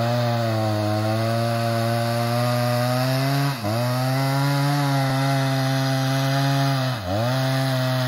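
Chainsaw running at high revs while cutting into the trunk of a large, dead ash tree, its engine note dipping briefly as it bogs in the cut about three and a half seconds in and again about seven seconds in.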